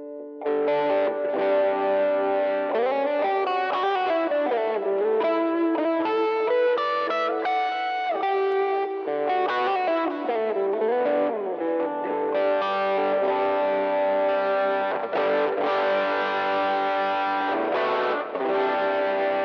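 Electric guitar played through a NUX MG30 multi-effects unit with a Joyo American Sound amp-simulator pedal in its effects loop, giving a lightly distorted tone: single-note lead lines with string bends, then ringing strummed chords.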